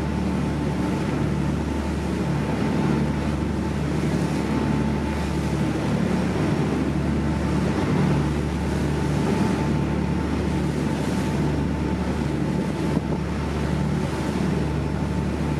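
A boat's engine running at a steady speed while under way, a constant low drone, with water rushing along the hull and wind.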